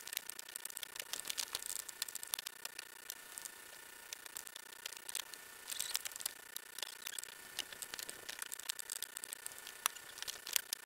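Boiled linseed oil being wiped by hand onto charred shou sugi ban boards: an irregular, scratchy crackle of many small clicks as the hand rubs over the burnt wood surface.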